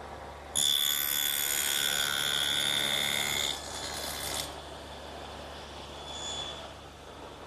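Table saw with a two-blade dado head cutter cutting finger-joint slots through two wooden boards at once. A sudden loud, high-pitched cutting whine starts about half a second in and lasts about three seconds. Afterwards the blade spins on more quietly.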